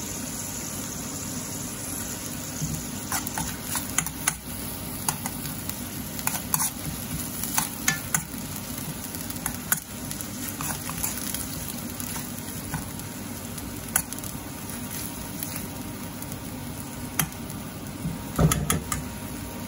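Sliced onions and tomato paste sizzling as they simmer in a steel wok. From a few seconds in, a metal spoon stirs them, scraping and clicking against the pan, with the loudest knocks near the end.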